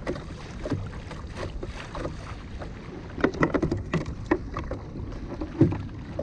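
Water splashing and knocking against a fishing kayak's hull in rough sea, over a steady low wind rumble on the microphone. The knocks are irregular: a cluster around the middle and the sharpest one near the end.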